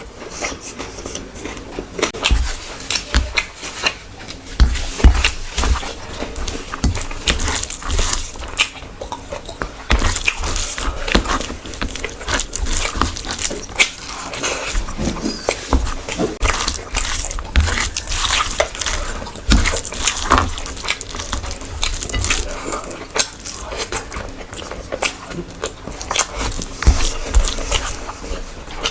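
Close-miked eating sounds: a person chewing and biting food, with many short, irregular mouth clicks.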